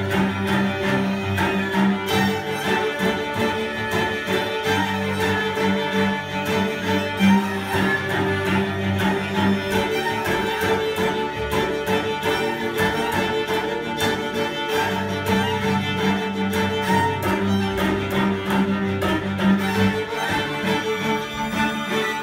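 String quartet playing live: violins and viola over long held cello notes, the music running on without a break.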